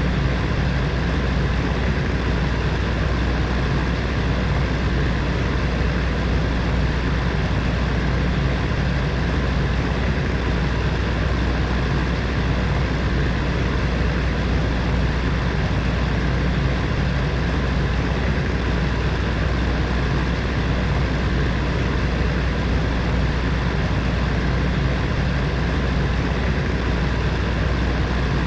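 Electric heater fan running steadily: an even whooshing noise with a low hum underneath.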